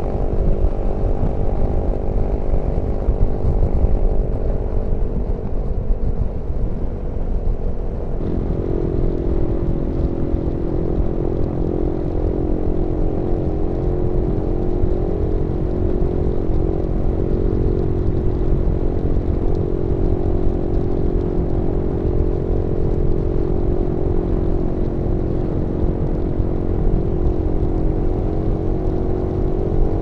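Suzuki V-Strom motorcycle engine at a steady cruise with wind rumble on the action camera. About eight seconds in, the sound switches abruptly to another motorcycle's engine, also running steadily at road speed.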